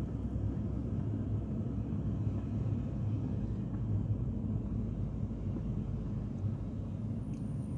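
Steady low rumble of a car driving slowly, heard from inside the cabin: engine and tyre noise on a paved road.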